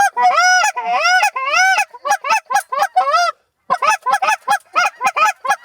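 Rapid series of loud goose honks, each call rising and then falling in pitch, about three to five a second, with a brief break just past the middle.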